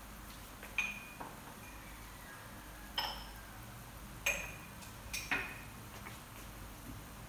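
Chicken soup bubbling at a boil in a pot, with about half a dozen sharp clinks of cookware at uneven intervals, each ringing briefly.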